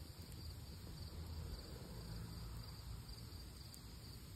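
Crickets chirping steadily, with a couple of faint crackles from a wood campfire.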